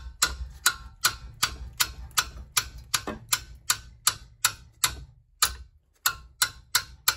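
A mallet striking the end of a 15 mm wrench on a Volvo S80's front brake caliper bracket bolt, about two and a half sharp knocks a second with a short pause a little past halfway, to bust the tight bolt loose.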